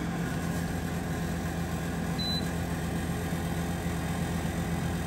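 Emeril Lagasse air fryer oven running mid-cook: a steady whir of its convection fan with a constant low hum.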